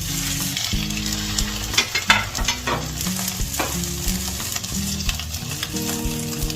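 Salmon fillet frying in hot melted butter in a pan: a steady sizzle with scattered crackles and spits. Background music plays underneath.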